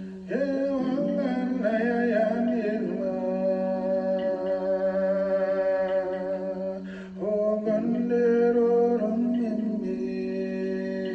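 Background music: a singing voice over a steady, held low drone. The voice comes in about half a second in, pauses briefly, and comes in again about seven seconds in.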